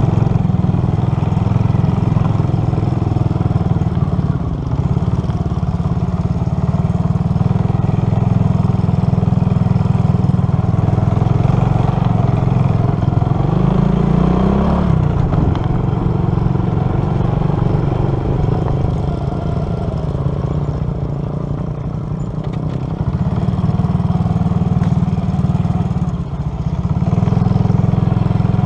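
Motorcycle engine running while climbing a rough mountain road. The revs rise briefly about halfway through, then drop back.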